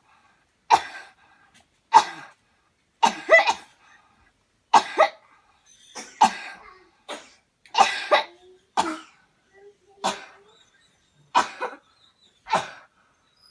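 A person coughing repeatedly, about a dozen hard coughs roughly one a second, some in quick pairs, as part of a deliberate cleansing coughing exercise.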